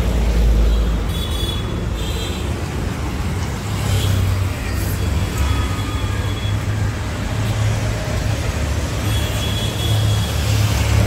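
Road traffic on a busy city road: motorbikes, cars and trucks passing, with a steady low rumble of engines and tyres that is loudest about the first second.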